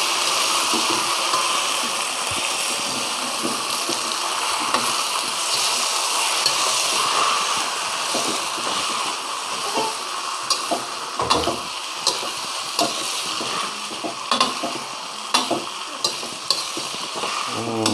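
Flat rice noodles (kuey teow) sizzling in hot oil as they are stir-fried in a wok. The spatula scrapes and knocks against the pan, the knocks coming more often in the second half.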